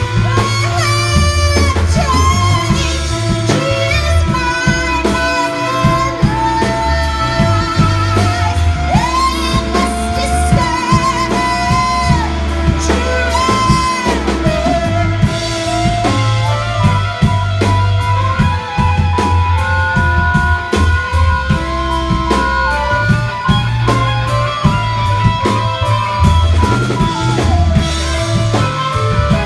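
Live rock band playing: drum kit, electric guitar and a singing voice.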